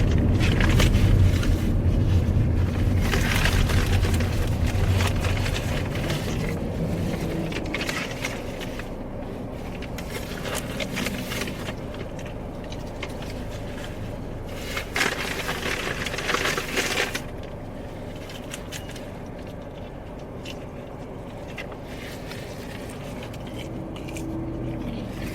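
Paper fast-food bag rustling and crinkling in several bursts, over the low rumble of the car, which fades over the first several seconds.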